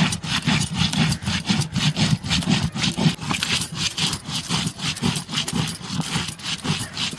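Stone-on-stone grinding on a sil-batta: the hand-held stone rubbed back and forth over the flat grinding stone, crushing wet whole spices into masala paste, in a quick, even rhythm of scraping strokes.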